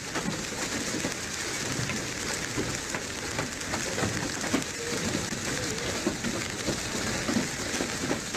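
Hailstorm: hailstones pelting pavement and parked cars, a dense steady hiss full of sharp little taps.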